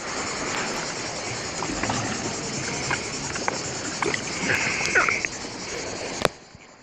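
Sea water lapping and sloshing around a camera held at the surface, with brief distant voices. About six seconds in there is a sharp knock, after which the sound drops and goes dull.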